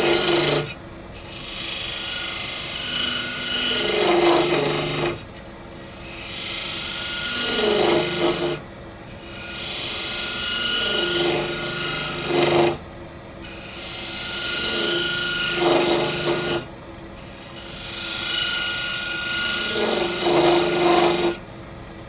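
Beading tool cutting into a wooden disc spinning on a lathe, rocked into one bead after another. There are about six cuts, roughly four seconds apart; each grows louder and stops abruptly as the tool comes off the wood, over the steady hum of the running lathe.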